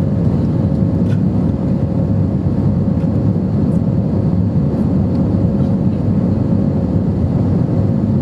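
Airbus A320-232 cabin noise: the IAE V2500 engines and the airflow heard from inside the cabin as a steady low rumble with a faint constant hum.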